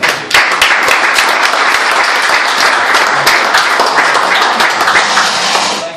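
Audience applauding, a dense patter of many hands clapping that starts sharply, holds steady and dies away shortly before the end.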